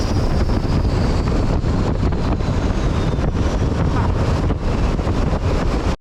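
Turbo diesel longtail boat engine running at speed, with wind buffeting the microphone and a faint high whine falling slowly in pitch; the sound cuts off abruptly at the end.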